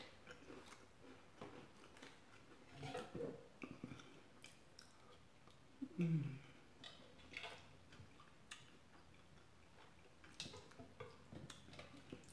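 Metal spoon clicking and scraping against a glass bowl, with soft chewing and sipping of chicken noodle soup close to the microphone; a slightly louder mouth sound about six seconds in as the spoon reaches her mouth.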